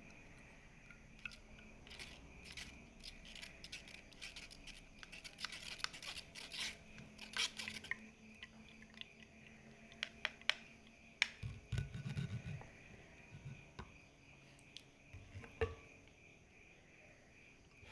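Spoon scraping and pressing orange pulp through a strainer over a glass, in bursts of short scratchy strokes, then a few dull knocks of the utensils being handled. A faint steady high whine runs underneath.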